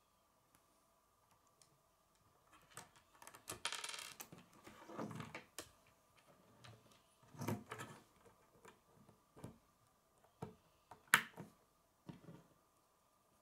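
K'nex plastic rods and connectors clicking and rattling against each other and a wooden tabletop as they are handled and snapped together, in scattered irregular clicks and short rustles, the sharpest click near the end.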